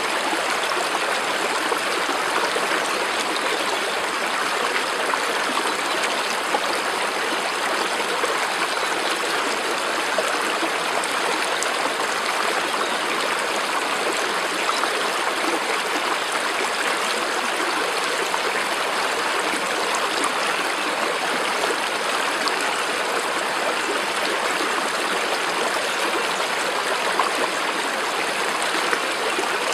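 Stream water flowing steadily, an even, unbroken sound with no pauses.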